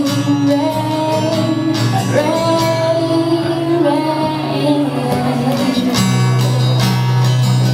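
Acoustic guitar played live with a woman singing over it into a microphone. Near the end the singing stops and the guitar plays on alone.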